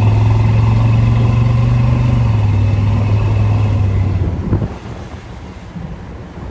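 Ford F-150's 351 Windsor V8 running after a hot restart, with a loud steady low drone that the owner puts down to the muffler vibrating against the floorboard. About four and a half seconds in the drone stops with a short knock and a quieter engine rumble carries on.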